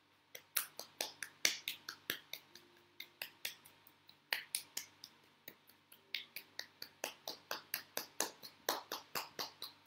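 Do-In self-massage percussion: a hand slapping and tapping along the bare forearm and elbow in a quick run of sharp slaps, about four a second, with a couple of brief pauses.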